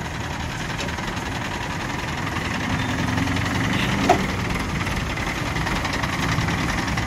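Diesel engine of a mobile crane running steadily while it hoists a suspended forklift, growing a little louder partway through, with a single sharp metallic knock about four seconds in.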